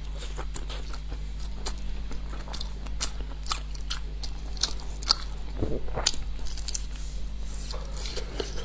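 Close-miked biting and chewing of a grilled sausage: a string of irregular, crisp snaps and wet clicks from the mouth.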